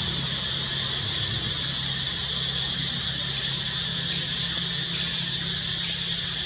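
Steady high-pitched background hiss with a low hum underneath, unchanging throughout; no distinct sound from the animals.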